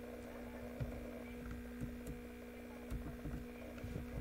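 Steady low electrical hum, with a few faint soft knocks.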